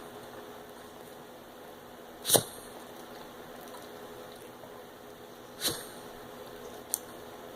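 A pug's short, hacking coughs: a loud one about two seconds in and a weaker one near six seconds, followed by a brief click. The cough is one that a couple of vets have not been able to explain.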